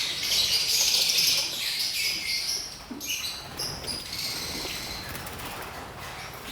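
A colony of lovebirds chattering with many overlapping high-pitched calls, busiest and loudest in the first three seconds, then thinning out.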